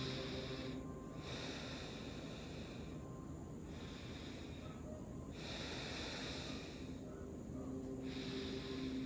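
A person breathing slowly and evenly as if asleep, each breath a soft rush of air about two seconds long with short pauses between. Faint, gentle background music fades out partway through and returns near the end.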